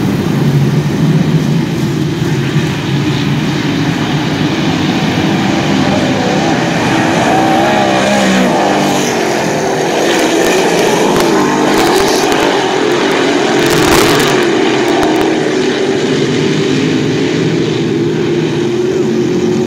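Pack of dirt modified race cars racing on a dirt oval, engines running hard and rising and falling in pitch as the cars pass and come off the corners. A single sharp knock about two-thirds of the way through.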